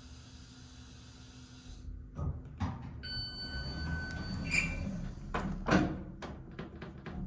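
Otis HydroFit hydraulic elevator coming to rest at the floor, its steady hiss cutting off, then the car doors opening with knocks, a held electronic tone and a ding, and two loud clunks. Small clicks from the car's push buttons follow near the end.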